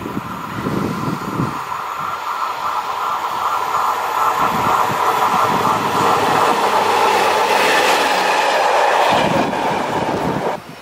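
Freight train approaching behind its locomotive, a steady whine with wheel clatter on the rails, growing louder as it nears. Wind gusts buffet the microphone.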